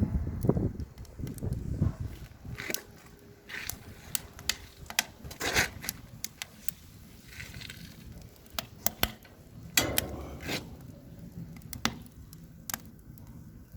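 Wood fire crackling and popping in a wood-burning fireplace stove, with irregular sharp snaps scattered throughout and a low rumbling noise in the first couple of seconds.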